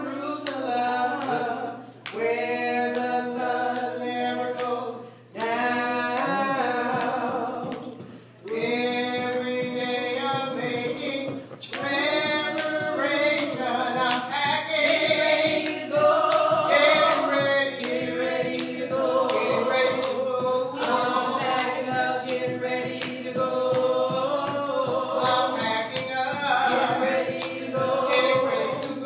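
A small mixed group of gospel singers, a man and several women, singing a cappella together in harmony. Phrases are broken by short pauses for the first dozen seconds or so, then the singing runs on without a break.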